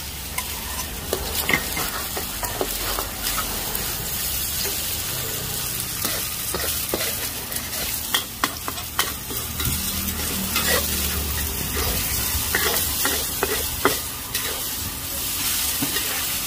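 Noodles and eggs frying in a steel wok, with a steady sizzle and frequent scraping and clicking as a metal spatula stirs and tosses them against the pan.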